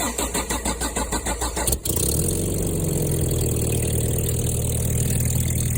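A vehicle engine cranking on its starter with a rhythmic churn, catching about two seconds in and then settling into a steady idle.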